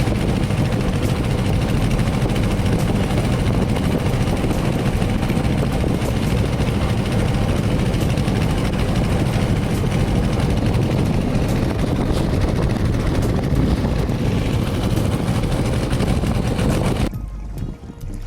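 Ketinting longtail boat's small engine running steadily under way. The engine noise drops away abruptly about a second before the end.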